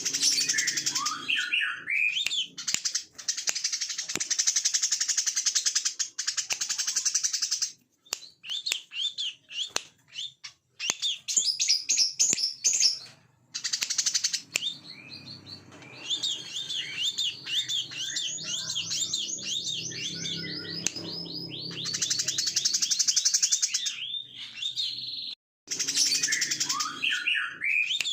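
Brown-throated sunbird singing high chirps and quick up-and-down notes broken by long fast buzzing trills, the rattling 'ngebren' song. The song cuts off abruptly a few times.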